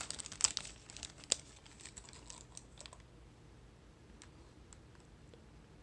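Clear plastic wrapper crinkling and crackling as the glow stick inside is handled, with a dense run of crackles and one sharp click in the first second and a half, thinning to scattered small ticks.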